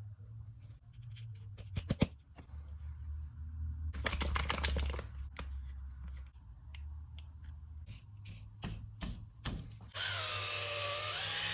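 A run of clicks and knocks, then about ten seconds in a power drill starts and runs steadily, its whine dipping briefly and then rising.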